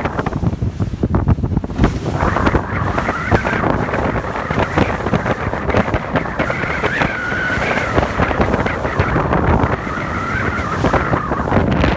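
Wind buffeting the microphone on a rigid inflatable boat running fast through choppy sea, with water rushing along the hull. From about two seconds in a wavering high whistle rides on top.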